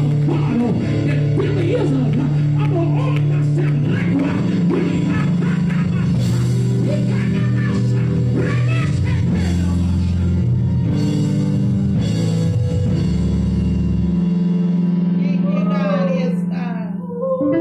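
Live church band music with guitar and drums over sustained held chords; the deepest bass notes drop out about fourteen seconds in.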